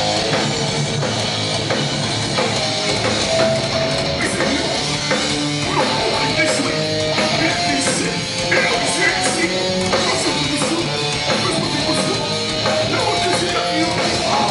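Hardcore punk band playing live: loud distorted electric guitars over bass and drums, an instrumental passage with no vocals.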